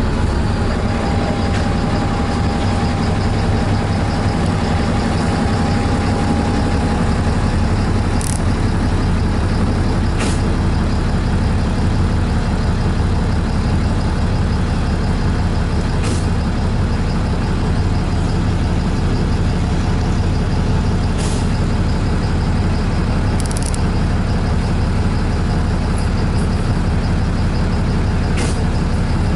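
Cabin noise inside a large passenger vehicle on a city avenue: a steady low rumble with road noise. A faint whine fades out about seven seconds in, and a few light rattles or clicks come through.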